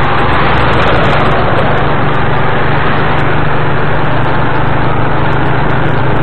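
Steady engine and road noise of a moving vehicle, with a low hum throughout; a passing heavy truck swells the noise briefly about a second in.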